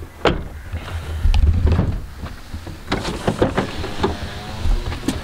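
Several sharp knocks and handling sounds as people climb into a car through its open doors, over a steady low rumble.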